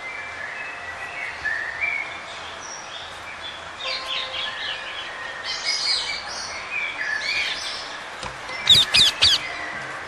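Small parrots chirping and chattering, with a busier stretch in the middle and three loud, sharp calls in quick succession near the end.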